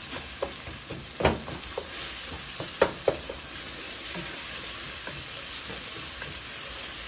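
Onions and tomato frying in oil in a saucepan, sizzling steadily while a wooden spoon stirs them. The spoon knocks against the pan a few times, most sharply about a second in and about three seconds in.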